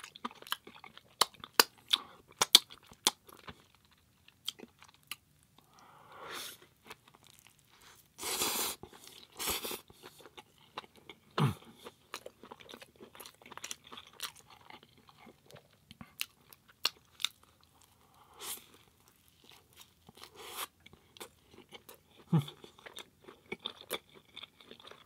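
Close-miked chewing of a soft burger with enoki mushrooms: wet mouth clicks and smacks and soft crunches, with a few short, louder noises scattered through.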